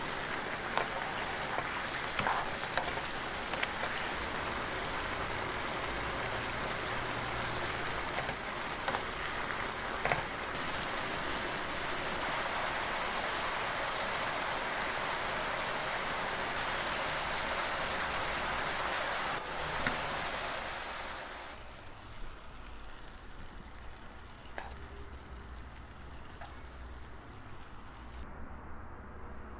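Soy-sauce braising liquid bubbling and sizzling around julienned burdock root in a wok as it reduces to a sticky glaze, with scattered small pops. About two-thirds of the way through it stops and only a much quieter background remains.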